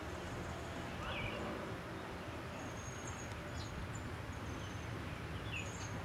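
Outdoor ambience with a steady low rumble and a few faint, short, high-pitched bird chirps scattered through it.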